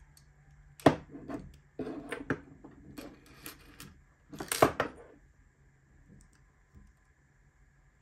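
Small metal tools and lock-cylinder parts clicking and clattering against a wooden desk while the cylinder is being taken apart. There is a sharp click about a second in, a run of light clatters after it, and the loudest clatter about four and a half seconds in as a tool is set down on the desk.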